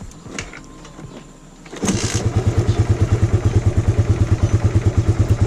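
Suzuki Raider 150's single-cylinder four-stroke engine starting about two seconds in, with no choke and no throttle, then settling into a steady, evenly pulsing idle. Its carburettor mixing screw has been eased out slightly to richen the idle mixture for cold weather, which is the fix for its hard cold starts.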